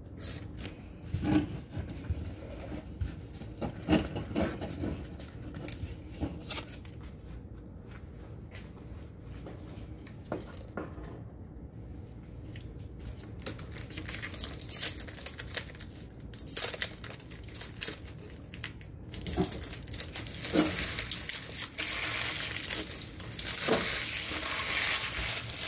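Foil booster pack wrapper of a Pokémon trading card pack being crinkled and torn open, the crinkling turning loud and continuous for the last six seconds or so. Before that, scattered light taps and rustles of handling.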